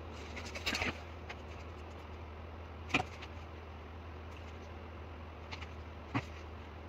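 A few light clicks and taps of small hand tools handled on a workbench — pencil, small steel rule and digital caliper — with a short cluster of clicks near the start, one sharp click about three seconds in and two lighter ones near the end. A steady low hum runs underneath.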